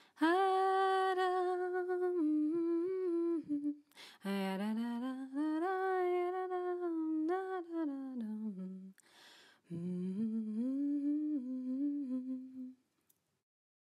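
A woman humming a slow, gentle melody of long held notes in three phrases, taking a breath before the last one; the humming stops shortly before the end.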